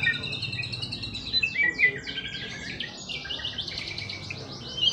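Caged songbird singing a fast, varied song of clear whistles and rapid runs of repeated downward-sweeping notes.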